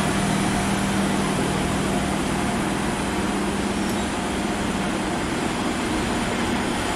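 Historic train of vintage coaches rolling slowly past a platform: a steady rumble of wheels and running gear, under a constant low hum that is strongest in the first few seconds.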